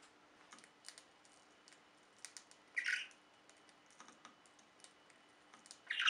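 Budgerigar calling: two short chirps, about halfway through and again at the end, between scattered faint clicks.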